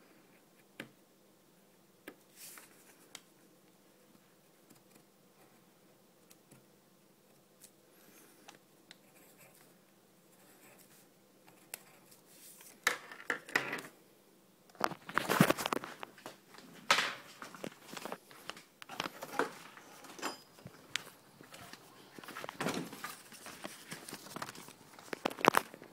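Pencil drawing on a paper airplane with a few light taps, then from about halfway loud bouts of paper rustling and crinkling as the paper plane is handled.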